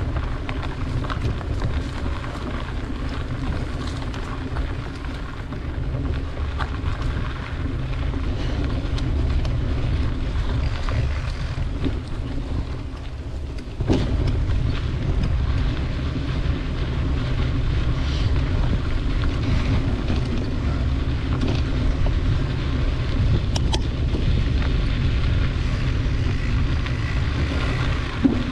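Wind buffeting the microphone of a moving bicycle, with a steady rumble of tyres rolling over a dirt trail. The sound dips and then jumps back abruptly about halfway through.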